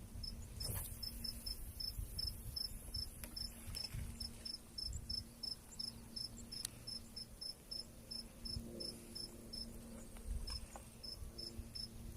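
A cricket chirping in an even rhythm, about three short, high chirps a second.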